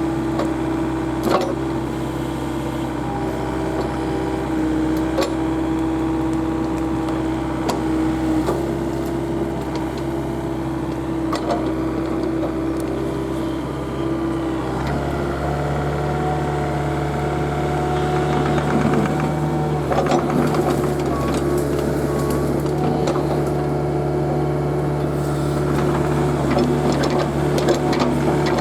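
Komatsu mini excavator's diesel engine running under work, a steady machine drone whose note steps up about halfway through as the load or revs rise, with occasional short knocks and clanks from the machine at work.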